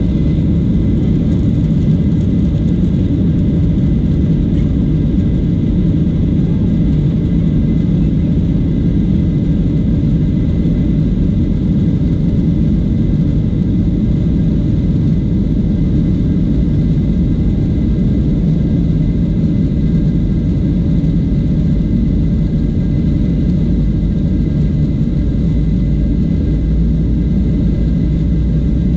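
Cabin noise of a jet airliner rolling along the runway: a steady, loud low rumble with a faint steady engine whine on top.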